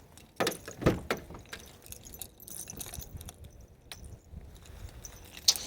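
Car keys jangling, with scattered clicks and knocks from handling them, and a sharp click near the end.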